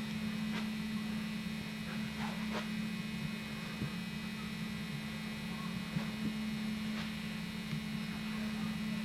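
Steady electrical mains hum with a faint high whine above it, broken by a few soft ticks.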